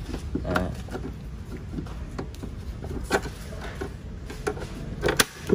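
A screwdriver prying a plastic car tail lamp housing loose, giving a few sharp clicks and knocks about half a second in, around three seconds in and near the end, over a steady low rumble.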